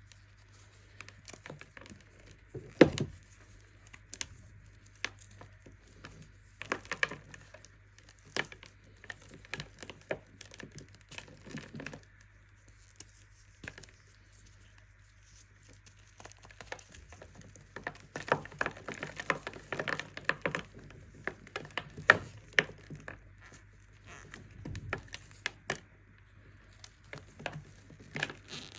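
Pressed baking soda being crushed: irregular crisp crunches and cracks, with one sharp crack about three seconds in and a dense run of crunching about two-thirds of the way through.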